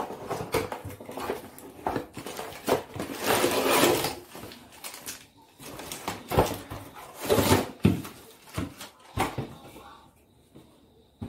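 Cardboard packaging box being opened and plastic-wrapped casseroles pulled out of it: rustling and crinkling of cardboard and plastic film, with scattered sharp knocks and scrapes and a longer rustle about three seconds in.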